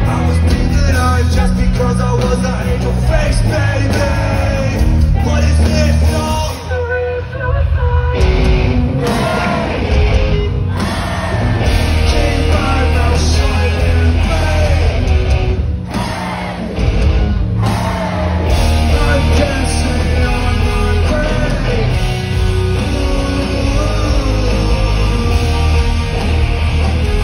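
Live rock band playing loud, with electric guitar, bass and drums, and yelled singing over it.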